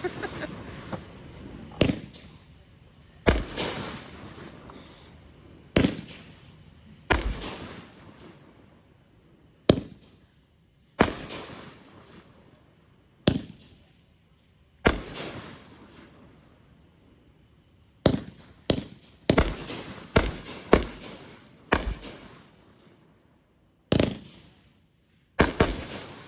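Consumer aerial fireworks bursting one after another: about sixteen sharp bangs, spaced one to two and a half seconds apart with a quicker run of several past the middle, each dying away with an echoing tail.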